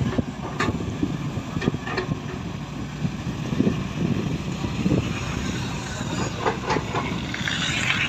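Matador Shantui tracked excavator's diesel engine running under load as it digs and lifts its bucket, with a few sharp knocks from the machine and a hiss near the end.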